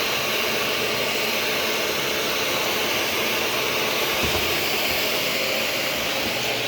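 Shark Navigator DLX upright vacuum cleaner running steadily on the floor, its motor making a high rushing whine.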